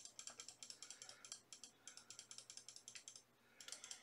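Rapid, faint clicking of a computer mouse button, about eight clicks a second, repeatedly stepping the letter-spacing control down. It pauses briefly a little after three seconds in, then starts again.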